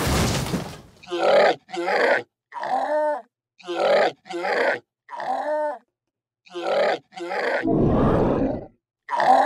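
A person's voice making creature calls for toy dragons: about ten short squeaky grunts, mostly in pairs, and a longer low growl near the end. A brief noisy rush comes about a second before the first call.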